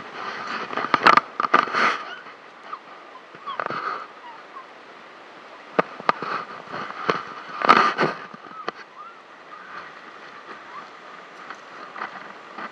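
Ocean surf breaking on a shore, a steady wash of noise, with irregular crunching and rustling bursts over it, loudest about a second in and again around eight seconds in.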